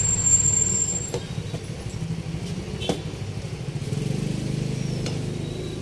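A steady low motor rumble that swells about four seconds in, with two light metal clicks of a ladle against the cooking pot.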